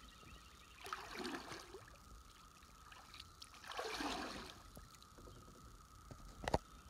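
Kayak paddle dipping into river water, two swishing, splashing strokes about three seconds apart, then a single sharp knock near the end.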